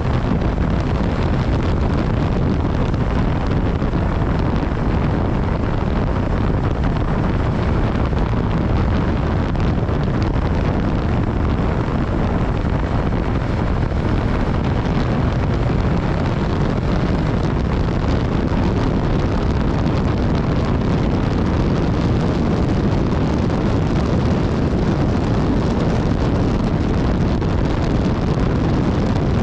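Steady wind rush on the microphone of a BMW S1000XR motorcycle being ridden, with its inline-four engine running underneath. The level stays even, with no clear revving or gear changes.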